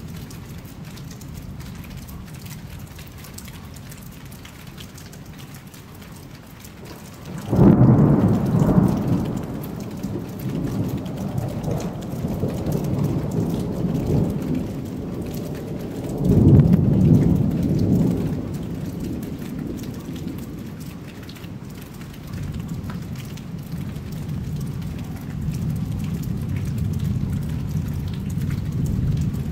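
Thunder over steady rain: a sudden loud clap about a quarter of the way in rolls on as low rumbling, with a second loud surge about halfway through and more distant rumbling near the end.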